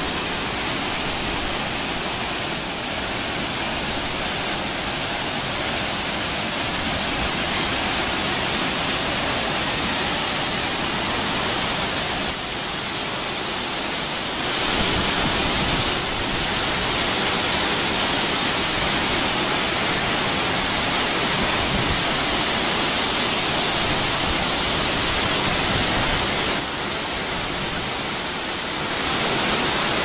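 Rushing water of a rocky stream and a tall waterfall: a loud, steady rush heavy in the highs, stepping up and down in level a few times.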